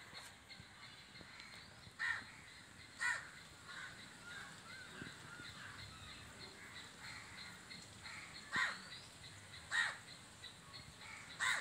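A crow cawing, single short caws spaced a second to several seconds apart, about five in all. Small birds chirp faintly in between.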